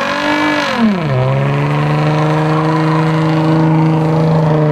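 Car engine revved high; its pitch drops about a second in, then holds at a steady high rpm.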